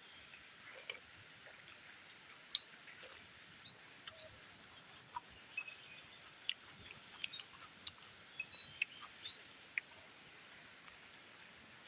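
Close-up eating sounds: irregular small wet clicks and smacks of chewing and mouth noises, spaced unevenly over the few seconds.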